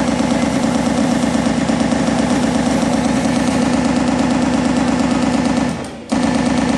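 Sustained rapid machine-gun fire, a steady loud rattle that breaks off briefly near the end and starts again.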